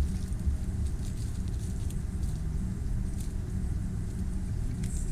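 A steady low rumble with faint scattered crackles.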